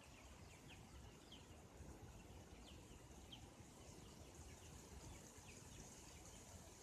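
Poultry chicks peeping faintly: scattered short high chirps, roughly one or two a second, over a low steady background hiss with a faint high whine.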